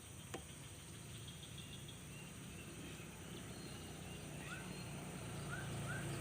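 Faint short bird chirps, each a quick upward hook, repeating several times in the last second and a half, over a low motor hum that grows steadily louder toward the end. A single faint click comes shortly after the start.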